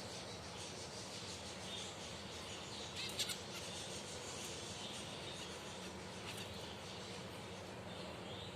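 Finches chirping: many short, high chirps over a steady hiss, with a brief louder burst about three seconds in.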